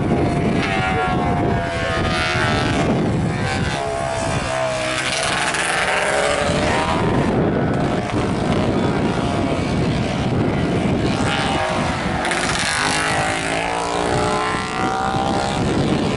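Historic racing motorcycles passing one after another, their engines rising and falling in pitch as each one approaches, goes by and pulls away.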